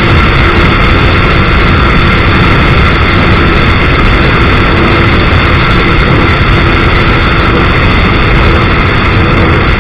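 Suzuki GSX-R150's single-cylinder engine running at a steady, unchanging pitch while the bike is ridden at speed, with heavy wind noise buffeting the microphone.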